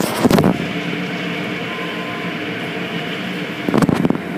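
Automatic car wash's rotating cloth brushes scrubbing against the car's side window and body, heard from inside the car: a loud, steady rush with a low mechanical hum, and heavy thuds as the brush strips slap the glass near the start and near the end.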